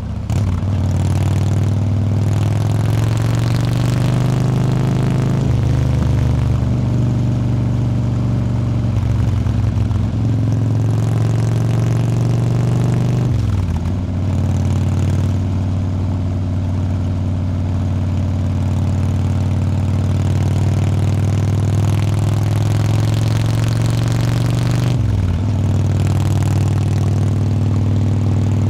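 Motorcycle engine running steadily at road speed, heard from the bike's rear with road and wind noise. Its note dips sharply and recovers about three times, around a quarter, half and most of the way through.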